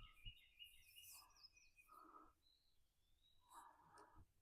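Near silence with faint birds chirping and twittering in the background.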